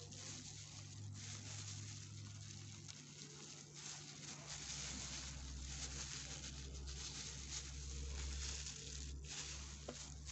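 Faint room noise: a steady hiss and a low hum that drops lower about four and a half seconds in, with soft handling sounds from a plastic cup and cream.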